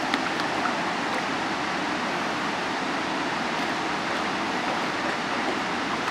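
Steady rushing of river water pouring over a weir, with a few light splashes from a small dog wading in the shallows near the start.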